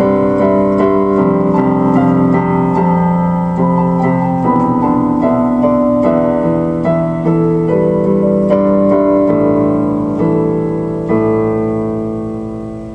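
Solo keyboard music in a piano sound: a melody over sustained chords, fading out near the end.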